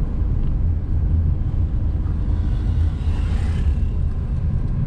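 Camper van on the move: a steady low rumble of engine and road noise, with a hiss that swells and fades about halfway through.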